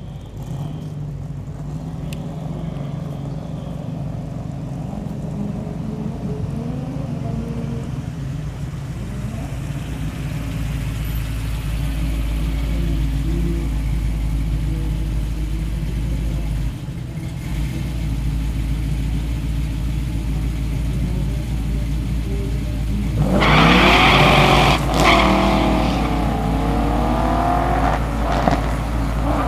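C5 Corvette's V8 and a second drag car idling at the start line, then launching together about 23 seconds in: the engines jump to full throttle, pitch climbing with a gear change within a couple of seconds, and carry on up through the gears as the cars run away down the strip.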